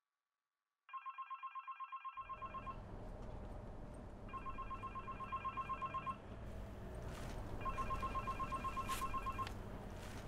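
Mobile phone ringing with a trilling, bell-like ring: three rings of a little under two seconds each, with pauses between them. Under the rings, a low, steady background hiss begins about two seconds in.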